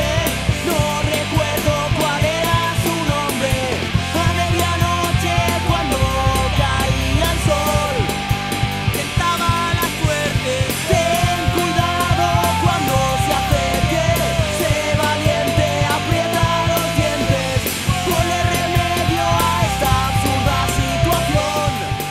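Punk rock song played by a full band: a drum kit with steady cymbal hits under a melody line that bends up and down.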